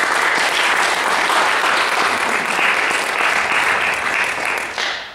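Audience applauding, the clapping dying away just before the end.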